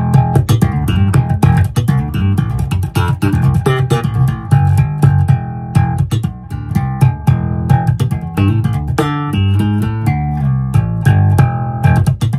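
Electric bass guitar played solo: a busy run of short plucked notes with sharp attacks.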